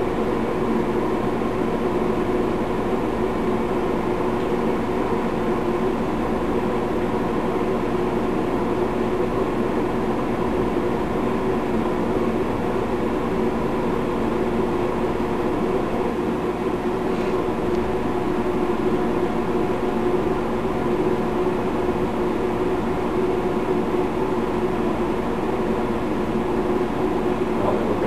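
Microwave oven running with a 60-watt light bulb inside: a steady hum and fan drone with several held tones that does not change.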